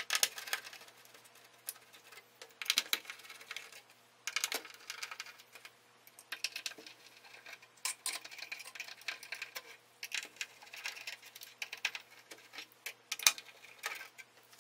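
A screwdriver backing out small screws from a synthesizer voice board. The sound is clusters of light metallic clicks and scrapes every second or two.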